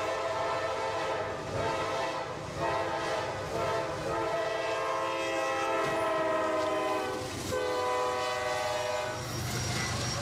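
Diesel freight locomotive's multi-note air horn blowing a series of long blasts with short breaks between them, the warning sounded when approaching a level crossing.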